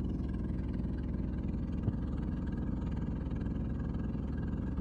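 Boat engine running steadily, a low, even hum with a rapid pulse.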